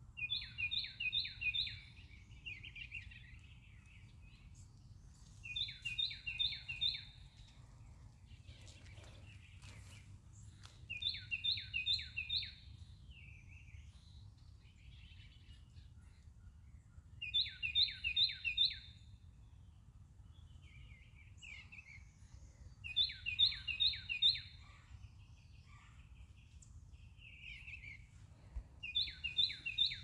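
A songbird sings the same short, loud song six times, about every five to six seconds. Each song is a quick run of four or five identical descending notes, sometimes followed by a softer trailing note. A faint low background rumble runs throughout.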